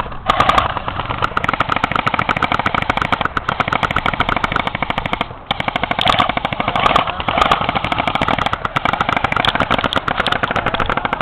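Airsoft gun firing on full auto: a long, fast string of sharp mechanical shots close by, with one brief break about five and a half seconds in.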